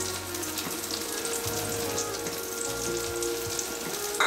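Brinjal and tomato curry sizzling and crackling in hot oil in a steel kadai, with a short sharp knock near the end.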